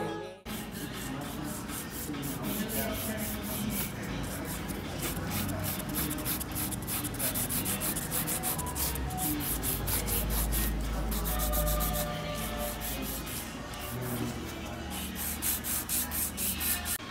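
A hand-held nail file rasping back and forth across long fingernails in quick, rhythmic strokes, several a second.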